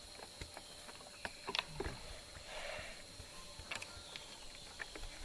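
Scattered light clicks and knocks, irregular, over a faint steady high-pitched tone, with a brief rustle about two and a half seconds in.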